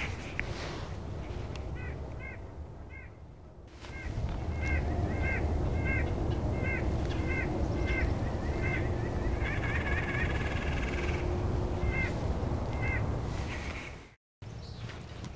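Birds calling: a run of short, hoarse calls repeated about twice a second, with a buzzier stretch partway through, over a low rumble.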